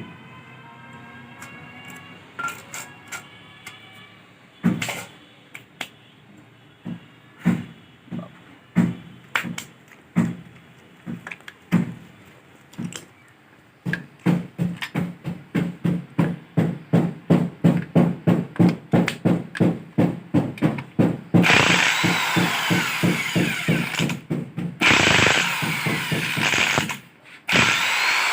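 Hand tools striking metal on a stripped-down engine: sharp knocks, irregular at first, then a steady run of about three a second. A little over three quarters of the way in, a power tool takes over, running continuously with a shifting pitch and stopping briefly twice.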